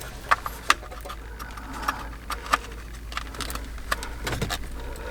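A few scattered light clicks and taps from hands handling the dashboard and head unit, over a low steady hum.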